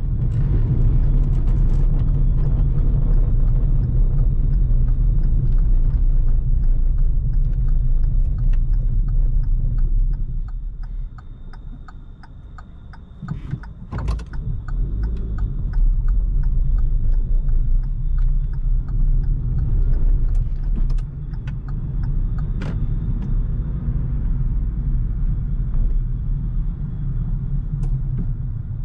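Car cabin noise while driving: a steady low rumble of tyres and engine on a cobbled road. It drops for a few seconds about halfway through while the car waits at a red light, and a sharp click comes as it picks up again.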